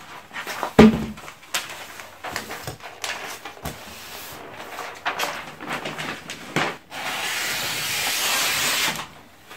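Wrapping paper rustling and crinkling as it is unrolled and spread out, with a thump about a second in. Near the end comes a steady two-second hiss as the paper is cut off the roll with a sliding scissor stroke.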